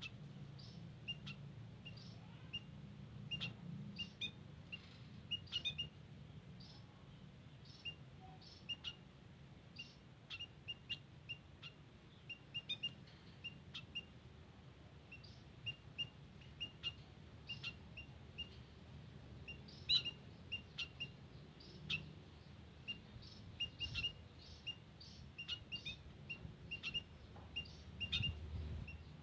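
White-headed munias calling: short, high chirps repeated irregularly throughout, sometimes several in quick succession, over a faint low hum.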